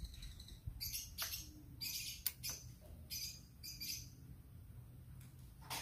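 Small birds chirping in quick clusters of short, high calls, with one sharp click a little over two seconds in.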